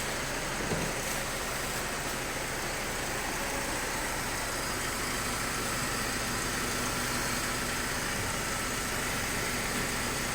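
BMW E46 engine idling steadily with an aftermarket sport air filter fitted, the engine speed holding even.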